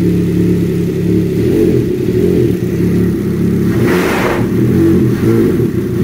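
Ski-Doo 900 ACE Turbo three-cylinder four-stroke engine idling at about 1400–1450 rpm, running smooth with no misfire now that its spark plugs have been replaced. A short hiss comes in about four seconds in.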